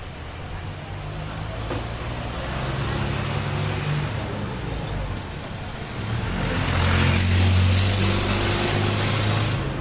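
Fuel-injected engine running and revved twice: a mild rise a few seconds in, then a louder rev held for about three seconds before dropping back to idle near the end.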